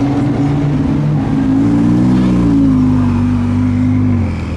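Ferrari 488 Spider's twin-turbo V8 running at moderate revs, its note rising slightly about two seconds in, easing off, then dropping away near the end.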